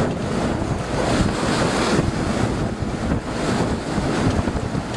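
Wind buffeting the microphone over the rush of rough seas along a sailboat under way, a steady noise with small rises and falls.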